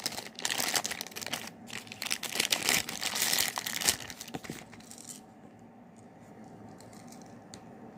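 Packaging being handled and unwrapped from a shower head filter: crinkling and rustling with many sharp clicks and taps. It dies down after about five seconds to a few faint clicks.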